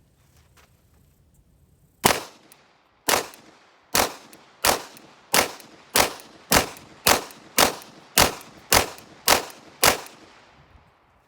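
Cobray M-11/9 9mm pistol fired semi-automatically: thirteen shots in one unbroken string starting about two seconds in, the first two about a second apart, the rest coming quicker, about two a second, with no stoppage.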